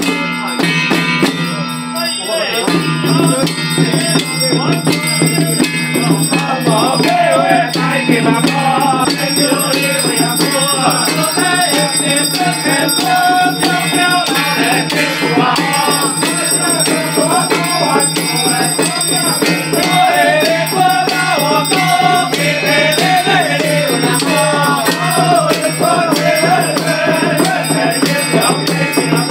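Temple ritual music: a group chanting a wavering melody over hand-held drums and rattling percussion, with a steady low drone underneath.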